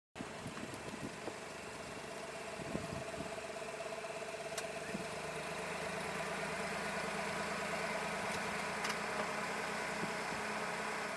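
An engine running steadily with a low, even hum and a few faint clicks, fading out near the end.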